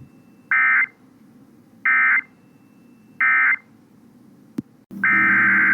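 EAS (SAME) end-of-message: three short, evenly spaced bursts of warbling data tones. After a click, a longer burst of the same data tones near the end is the start of the next alert's header.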